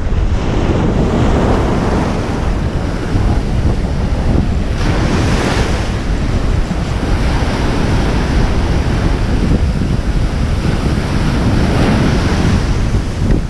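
Ocean surf washing on the beach under heavy wind buffeting the microphone, a steady rumbling hiss with a louder surge about five seconds in.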